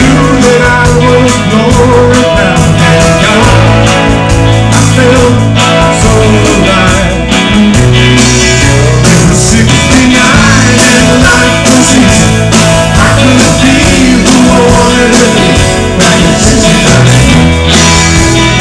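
Live rock band playing loud: electric guitars over a steady drum beat.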